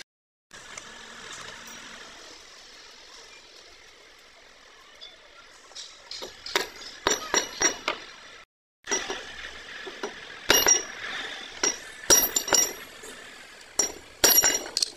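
Hand tools clinking and tapping against a steel excavator track roller and its pins, sharp separate metallic strikes with a light ring. They come irregularly, a few at a time, from about six seconds in, over a faint steady workshop background.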